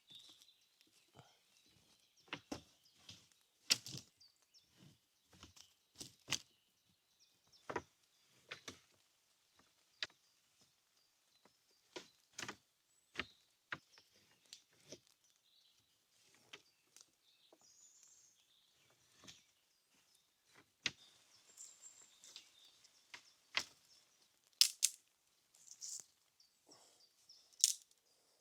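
Irregular sharp clicks and knocks, a few at a time with short gaps between, with faint bird chirps behind them.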